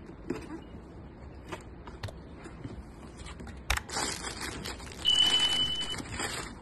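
Shoebox and tissue paper handled during an unboxing: faint scattered clicks, a sharp knock about halfway through, then a stretch of papery rustling hiss. Inside that rustling, a steady high electronic beep lasts about a second, a sound effect of the on-screen subscribe-button animation.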